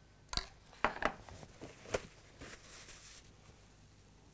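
A metal spoon knocking and clinking against a small saucepan four or five times in the first two seconds as white sauce is spooned out, followed by a faint soft hiss.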